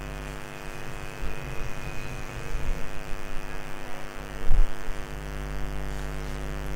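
Steady electrical mains hum, under the rubbing of a duster wiping a whiteboard clean, with one dull low thump about four and a half seconds in.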